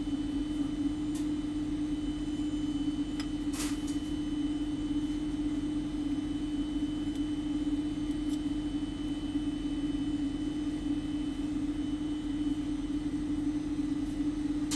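A steady low hum runs throughout, with a sharp click about three and a half seconds in and a few faint ticks.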